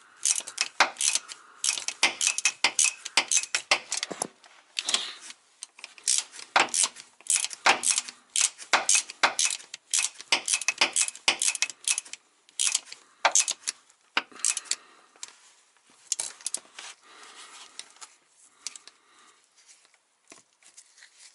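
Socket ratchet clicking in short, uneven runs as a lock nut is tightened on a transmission shifter linkage bolt, with light clinks of wrench and socket on metal. The clicks come thick and fast, then thin out over the last few seconds.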